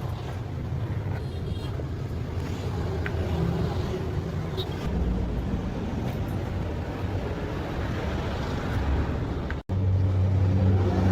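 A steady low mechanical rumble, like a motor or engine running, cutting out abruptly near the end and coming back as a louder, steadier hum.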